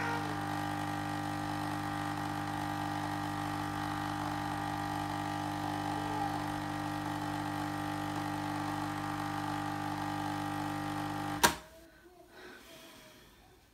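Krups capsule coffee machine's pump running with a steady hum while coffee streams into a glass. Near the end it cuts off with a sharp click as the brew finishes.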